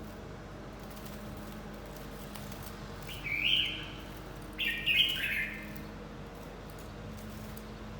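Red-whiskered bulbul singing two short warbling phrases, a second or so apart, near the middle.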